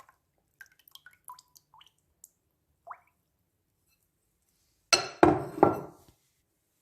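Kitchen utensils and dishes being handled: a few light clicks and a short clink, then a loud clatter of about three knocks near the end.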